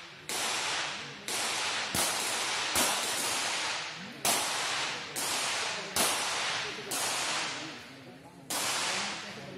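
.22 rapid-fire pistols firing from several lanes at once: about nine sharp cracks at irregular intervals. Each crack leaves a long echoing tail in the covered range.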